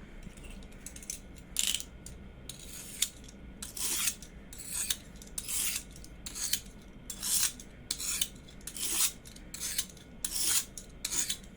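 A metal blade drawn repeatedly across a knife sharpening stone: a run of short, scratchy scraping strokes, a little under two a second, starting about a second and a half in.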